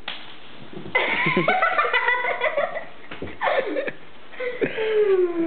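A person giggling and laughing in several bouts, the last one a long falling laugh near the end.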